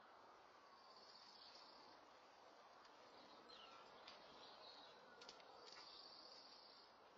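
Near silence: faint outdoor background hiss, with a faint high trill twice and a few faint ticks.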